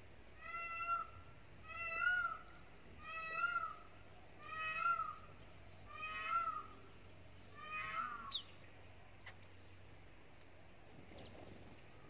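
Indian peafowl (peacock) calling six times in a steady series, about one call every one and a half seconds, each a rising-and-falling wail. A few faint small-bird chirps follow near the end.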